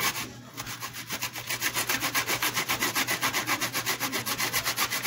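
Green bell pepper being grated on a stainless steel box grater: quick, even rasping strokes, about five a second, starting about a second in.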